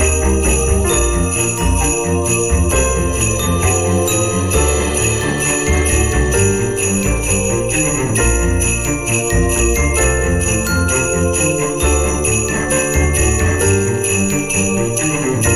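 Christmas background music led by continuously shaken jingle bells, with a stepping bass line underneath.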